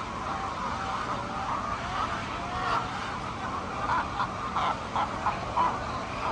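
Several hens calling and clucking at once, with a run of short clucks about four to five seconds in.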